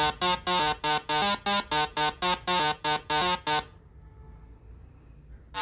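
Background music: a melody of short, evenly spaced notes, about three or four a second. It stops about two-thirds of the way through, and a new phrase starts right at the end.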